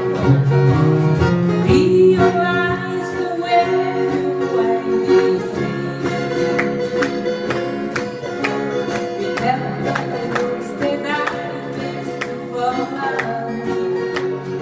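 Live acoustic guitar band: several acoustic guitars strummed steadily, with singing over them.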